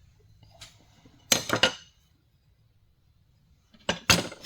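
Carving gouges and chisels clinking and knocking as they are handled and set down: a quick cluster of sharp clinks about a second and a half in, and more near the end.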